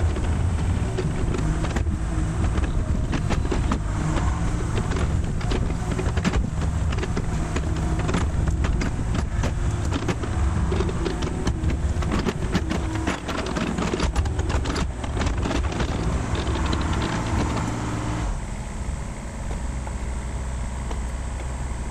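Mini excavator's diesel engine running at working throttle as the machine tracks and moves its arm, with frequent clanks and knocks. About eighteen seconds in, the engine drops to a lower, quieter run.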